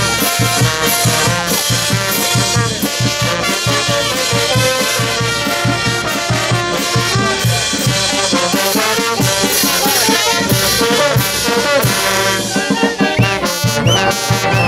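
Brass band of sousaphones, trumpets and other horns playing a lively dance tune with a steady, driving beat.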